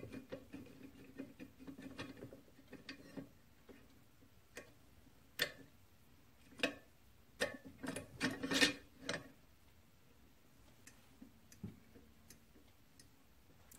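Irregular light clicks and taps of a small hand tool and thin shims being worked into a flyball governor on an engine flywheel. The clicks are sparse at first and come thicker and louder near the middle.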